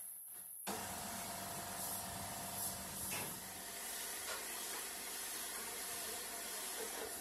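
Gravity-feed air spray gun spraying paint, a steady hiss that starts suddenly about a second in.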